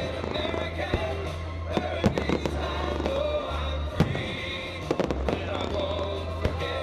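Fireworks going off in a string of sharp bangs and crackles, the loudest about two and four seconds in, over music with a steady deep bass.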